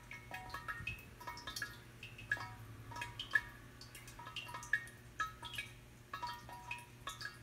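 Shigaraki-ware ceramic suikinkutsu (maru tōkin): water drops falling inside the clay vessel, each giving a short ringing note. Several drops a second land in an irregular patter, at several different pitches.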